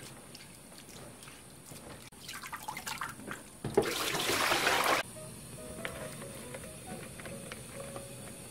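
Water sloshing as bean sprouts are swished by hand in a plastic colander basin, then about four seconds in the green basin is tipped and its water pours out into a stainless steel sink for about a second, cutting off suddenly. Faint background music follows.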